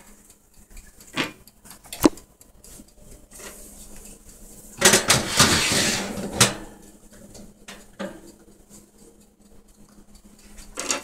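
Metal clatter of an oven rack and muffin tins: a few sharp clicks, then a longer scraping rattle about five seconds in that ends in a clack.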